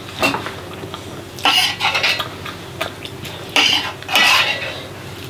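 Spoons scraping and clinking against metal plates as people eat, in a handful of short scrapes.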